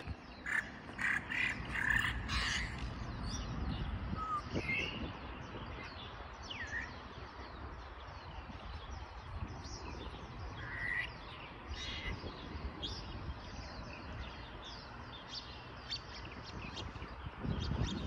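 African grey parrot making a scattered string of calls: short whistles that glide up or down in pitch, chirps and clicks, with pauses between them.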